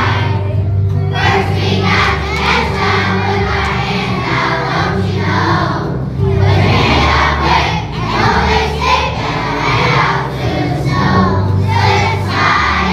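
A large choir of elementary-school children singing together over an instrumental accompaniment with a bass line that moves every second or two.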